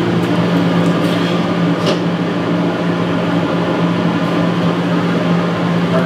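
Beverage-Air UR30GE mini fridge's refrigeration compressor and fan running with a steady hum on a test run after a new capacitor was fitted: the compressor now starts and keeps running, and the fridge begins to get cold.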